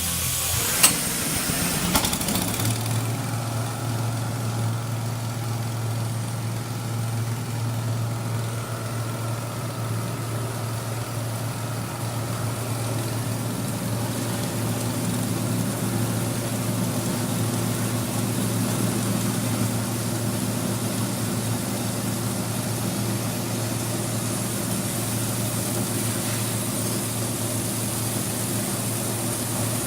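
Motor-driven coffee pulping machine running steadily with a constant hum, starting up about two seconds in after a couple of sharp clicks.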